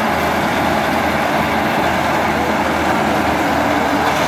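KS 9300 combine harvester with a Super Straw System attachment running at work: a steady, loud drone of its engine and threshing machinery that holds even, with no changes.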